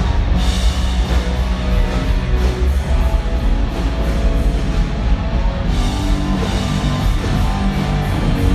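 Rock band playing live at a soundcheck: electric guitar over bass and drums, loud and continuous.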